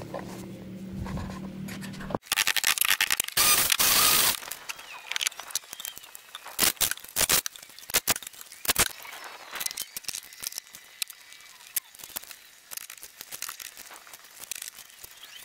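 Hand work on lumber and deck boards: a loud stretch of dense noise about two seconds in, then scattered knocks, clicks and scraping.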